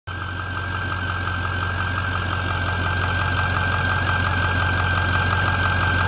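6.4L Power Stroke V8 diesel idling with a steady high-pitched whine over its even clatter. The squealing/whining noise is the sign of air trapped in the fuel cooling system's coolant loop.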